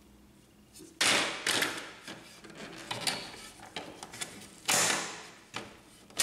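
A glass scanner plate being handled and seated in its plastic frame: a series of sharp knocks and clatters of glass against plastic, the loudest about a second in and near five seconds in, with another at the very end.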